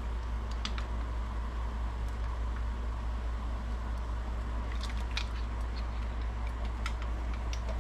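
Steady low background hum with a few light clicks and taps from a plastic measuring spoon and squeeze bottle being handled over a small steel saucepan.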